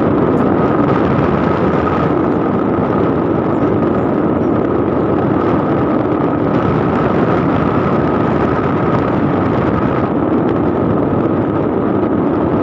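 Vehicle travelling steadily along a road: a continuous drone of engine and road noise with a steady whine above it.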